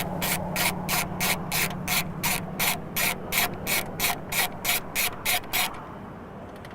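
Ratchet wrench with a 10 mm socket loosening the airbox mounting nut, its pawl clicking in quick even strokes about three a second, stopping about five and a half seconds in.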